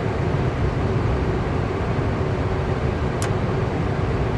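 Natural-gas furnace running steadily, with a low rumble and a faint hum, while it goes through an ignition attempt that fails to light. A single sharp click about three seconds in.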